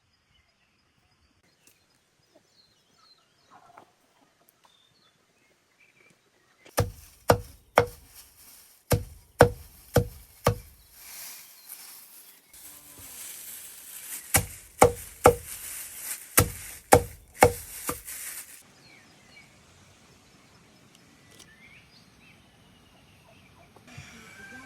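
A blade chopping down onto wood: sharp strikes in short runs of three to five, roughly two a second, with a rustling noise under the later strikes.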